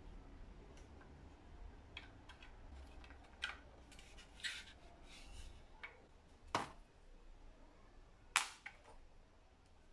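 Handling noise from a plastic car turn-signal housing being turned over in the hands: scattered small clicks and taps, with a couple of sharper knocks about two-thirds of the way through and near the end.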